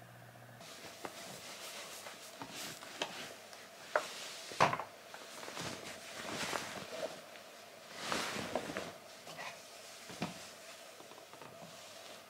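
Handling a creased white cotton shirt: fabric rustling and swishing, with scattered light knocks and clicks, over a faint steady hum.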